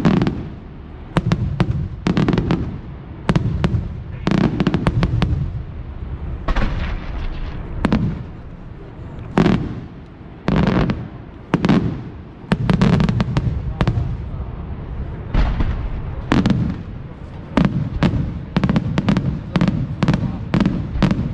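Aerial fireworks display: a rapid, irregular series of sharp shell bursts and bangs, at times several a second, each followed by a low rumbling echo.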